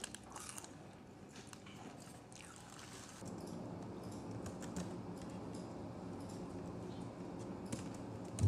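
Faint close-up eating sounds: churros being chewed and their paper wrappers rustling, then a few soft laptop keyboard clicks. A low steady hum joins about three seconds in.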